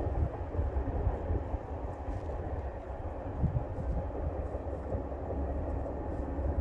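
Freight train of oil tank cars rolling away down the line: a steady low rumble of wheels on rail.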